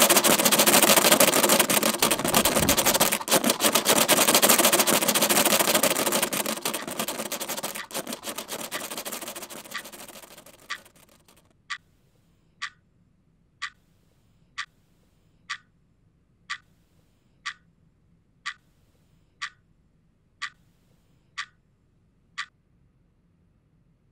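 A loud, dense noise full of crackles fades away over about ten seconds. A clock then ticks alone in a quiet room, about once a second.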